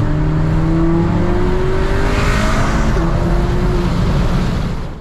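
Turbocharged four-cylinder car engine accelerating hard, heard from inside the cabin with road and wind noise: the engine note climbs steadily, dips briefly about three seconds in, then climbs again.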